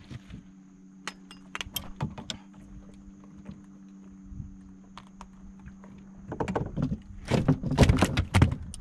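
Light metallic clicks and rattles of a lure's hooks and the landing net as a barramundi is unhooked, then a louder burst of thumps and slaps near the end as the fish thrashes on the boat's deck. A steady low hum runs underneath.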